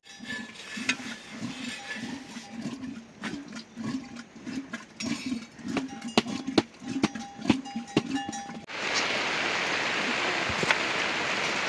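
Light clinking and sharp knocks over a repeated low thudding, then, about nine seconds in, a sudden switch to heavy rain falling steadily.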